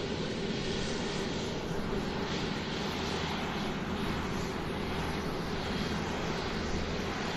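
Airplane engines during takeoff: a steady rush of engine noise over a low hum.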